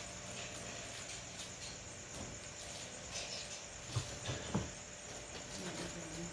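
Night insects, crickets by their sound, chirping steadily in the background, with three short soft knocks about four seconds in.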